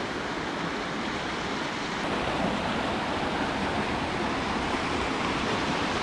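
Mountain stream water rushing steadily as a small cascade pours into a rock plunge pool, a little louder after about two seconds.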